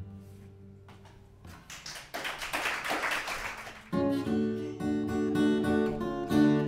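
Acoustic guitar's last chord ringing out, then a couple of seconds of light applause, then the acoustic guitar starts up again with picked notes about four seconds in.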